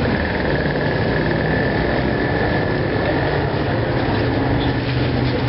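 Steady street traffic: vehicle engines running close by, with a low hum and a thin steady whine over it.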